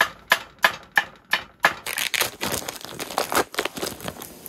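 Food-prep handling at a camp stove: six sharp knocks about three a second, then plastic packaging crinkling and rustling.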